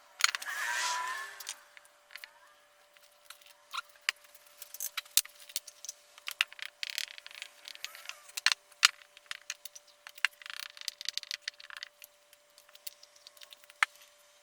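Hand tools working wood: scattered clicks and light knocks of tools being handled and set down, with a few brief scraping or rubbing strokes, the loudest in the first two seconds. A faint steady hum runs underneath.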